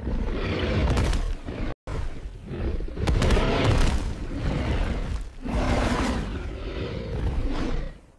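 Sound-effect dinosaur fight: heavy booming impacts mixed with growling roars, in loud stretches broken by short dips. There is a sudden brief cut to silence just under two seconds in.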